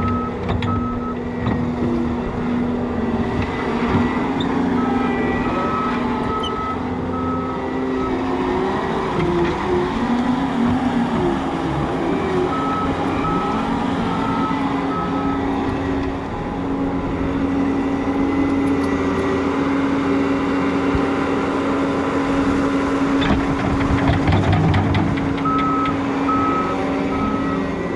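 John Deere compact track loader's diesel engine running steadily under load while it works dirt, its reversing alarm beeping in short runs several times as it backs up. About three quarters of the way through, a rattling rush as dirt and stones tip from the bucket.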